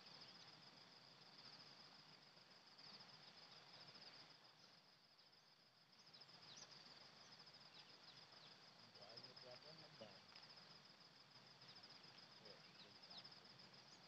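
Near silence, with a faint, steady, high-pitched insect trill throughout and a few short bird chirps.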